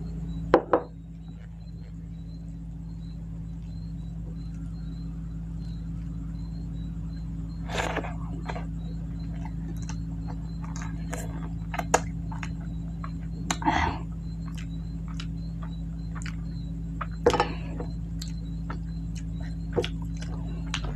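Close-up eating sounds: scattered wet clicks and smacks of chewing and of rice being mixed and scooped by hand on a plate, with a sharp knock about half a second in and a few louder brief sounds later, over a steady low electrical hum.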